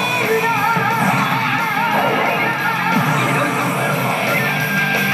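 Rock background music with electric guitar playing steadily from a Basilisk 2 pachislot machine while its reels spin.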